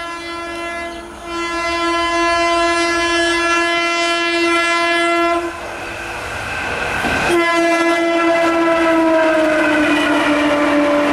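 WAP-4 electric locomotive's air horn sounding one long blast, then a second long blast that drops in pitch as the locomotive passes at speed. The noise of the train's wheels on the rails grows toward the end.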